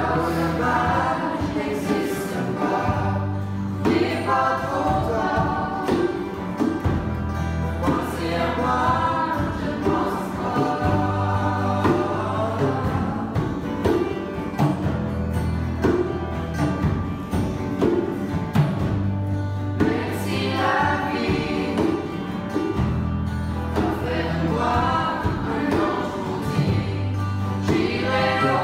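A group of young voices singing together, accompanied by strummed acoustic guitars, with steady low chord notes changing every couple of seconds.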